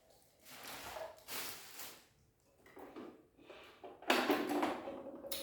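Handling noise: several short bursts of rustling and scraping as the sewing machine and its packaging are moved about, the loudest about four seconds in.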